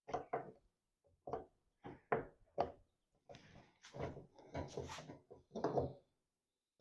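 Fuel pump and sending unit top plate being pushed and worked into the fuel tank opening: a run of short knocks and clunks, with scraping about halfway through, as its locating tabs are forced toward their slots.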